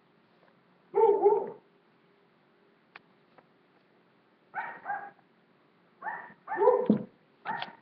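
A dog barking in short bouts: a loud double bark about a second in, another pair near the middle, then three quick barks near the end.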